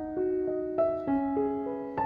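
Background piano music: a gentle melody of sustained notes, each held for about a quarter to half a second.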